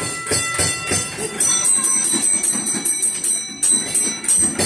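Bells jingling and ringing in rapid, uneven strikes, with high metallic ringing tones.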